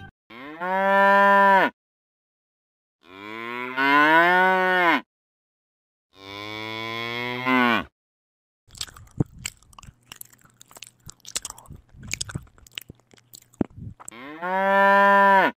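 A cow mooing three times, each call one to two seconds long. It is followed by about five seconds of chewing, a quick irregular run of clicks. One more moo comes near the end.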